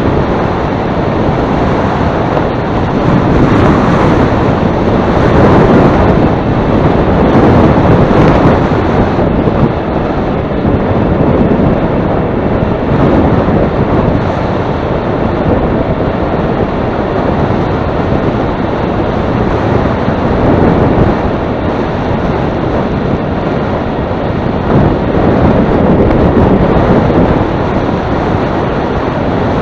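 Heavy wind noise on the microphone, a loud rushing that swells and eases in gusts, strongest a few seconds in and again near the end.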